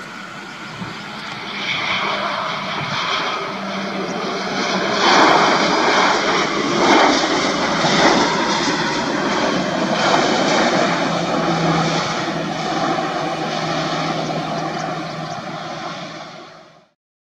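An Airbus A319's CFM56 jet engines in reverse thrust on the landing rollout: a loud rushing jet noise over a low steady hum that builds about two seconds in, is loudest through the middle, then eases as the jet slows and fades out near the end.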